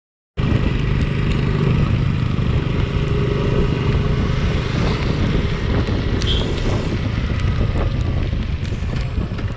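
Suzuki Gixxer 150 motorcycle's single-cylinder engine running steadily on the move, with wind rushing over the microphone; it cuts in suddenly a moment in.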